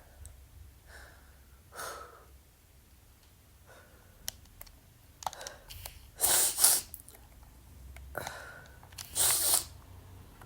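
A man sneezing twice, about three seconds apart, each loud sneeze coming after a quicker, quieter breath in. A shorter, softer breath or sniff comes about two seconds in.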